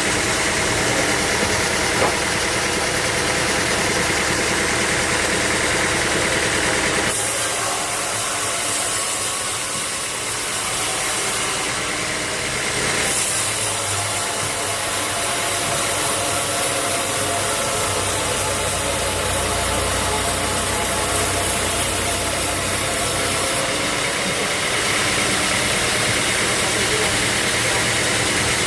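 Sawmill machinery running with a steady, loud motor drone and hum. The sound changes abruptly a few times, about seven seconds in and again near thirteen and twenty-four seconds.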